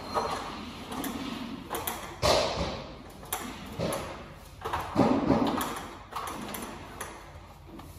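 Irregular knocks and thuds, echoing in a large room, as a worker climbs a stepladder and works at a laminate wall panel; the loudest knocks come about two and five seconds in.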